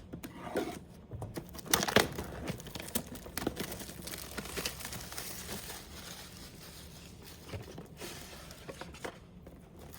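Plastic shrink wrap being torn off a Pokémon Elite Trainer Box and crumpled, a run of crinkling with sharp crackles, loudest about two seconds in.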